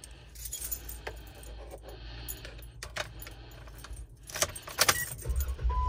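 Car keys jangling and clicking as they are handled in a Jeep's cabin, with a burst of jingling about four and a half seconds in. Near the end the engine starts with a low rumble and a steady warning chime tone begins.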